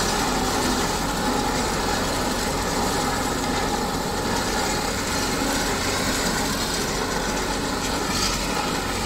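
Farm tractor's diesel engine running steadily under load while its rear-mounted rotary drum mower cuts tall grass.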